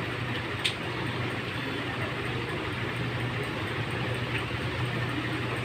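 Steady low motor hum over a constant noisy background, with one faint short click about two-thirds of a second in.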